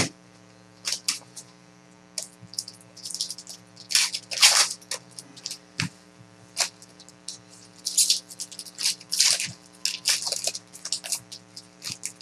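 Baseball trading cards and pack wrappers being handled: short, irregular crisp rustles and slides, several clustered near the middle and again near the end, over a faint steady electrical hum.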